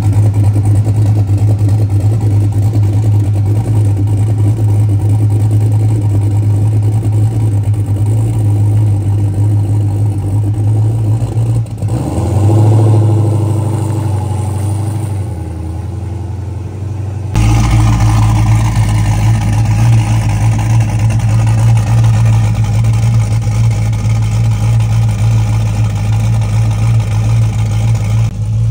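Turbocharged fourth-generation Chevrolet Camaro's engine idling, with a brief rise in revs about twelve seconds in. From about seventeen seconds in it is heard close up at the engine bay, with a heavier, deeper rumble.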